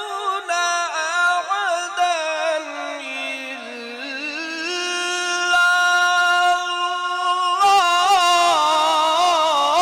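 A man reciting the Quran in the melodic tajweed style, with long held notes and ornamented turns. The pitch sinks slowly through one long phrase, and after a short break about three-quarters of the way through, a fresh phrase starts higher.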